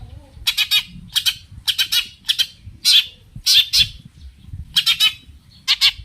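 Long-tailed shrike (cendet) giving harsh, rapid chattering calls: about eight short bursts of three or four notes, repeated every half second to a second. These are the agitated, aggressive calls that are played to provoke other shrikes into answering.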